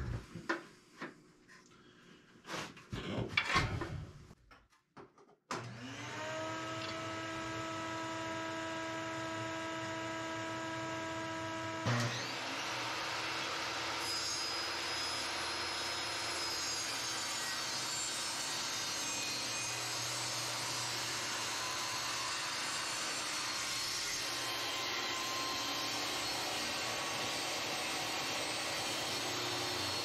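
A few knocks as the board is set against the fence, then a portable table saw's motor spins up about five seconds in and runs with a steady whine. About twelve seconds in a louder, steady rushing noise takes over as the blade rips through a 3/4-inch hardwood flooring board.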